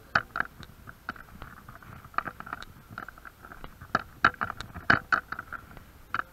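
Footsteps crunching over rubble and broken debris on a concrete floor, an irregular run of sharp crunches and clicks, several a second, with the loudest steps about four and five seconds in.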